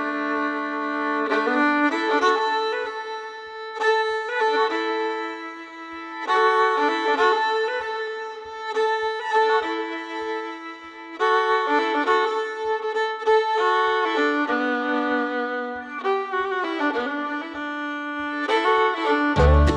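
Background music: a fiddle playing a melody of held notes.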